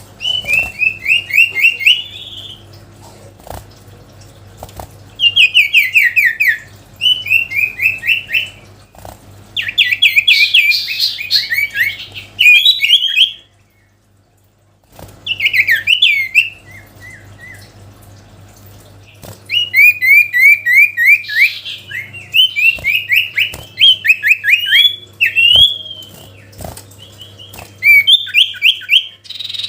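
A sirtu songbird singing in loud bursts of fast, sharply repeated chirping notes, many to the second, each burst lasting a second or a few seconds, with short pauses between them: vigorous territorial song of the kind used to call up rivals. A faint steady hum runs underneath.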